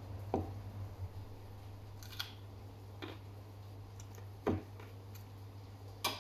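A person chewing food close to the microphone, with five short, sharp mouth clicks and smacks spread through, over a steady low hum.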